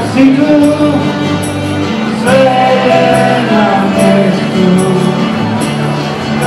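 A live band playing a song on acoustic guitars, bass guitar and accordion over a hand drum, with singing.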